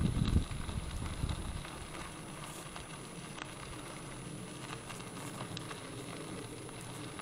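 E-bike rolling along a gravel drive: a steady crunch of tyres on gravel, with scattered small clicks. A low buffeting of wind on the microphone in the first half-second.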